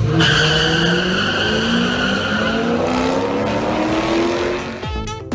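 Two cars launching off the line at a drag strip under full throttle, their engines rising steadily in pitch as they accelerate down the track. A high tyre squeal runs over roughly the first two seconds.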